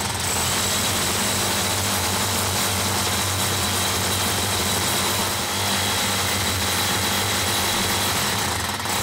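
Titan TTB653 SDS hammer drill boring a large masonry bit into a concrete block: a loud, steady motor whine with vibration from the hammer action, the bit going in ridiculously easy.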